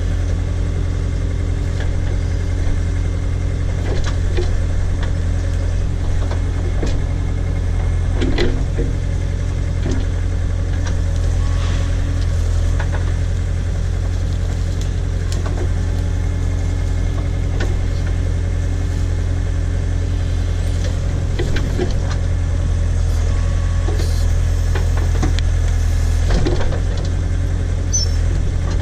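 Case tractor engine driving a Davis D100 backhoe, running steadily under the operator while it digs out a tree stump, with a few knocks from the digging.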